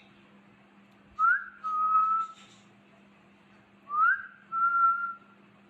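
Whistling, twice: each whistle is a quick upward swoop followed by a steady held note. A faint steady low hum runs underneath.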